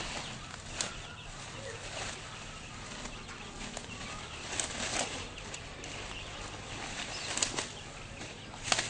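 A woven plastic sack and harvested patchouli plants rustling and crinkling as the sack is shaken and emptied. The rustling comes in several short bursts over a steady background hiss, and the loudest burst comes near the end.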